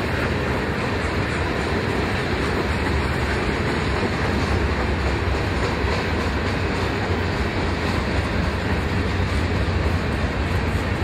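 Freight train rolling along the track, with a steady, loud noise of wheels and railcars on the rails and a heavy low rumble underneath.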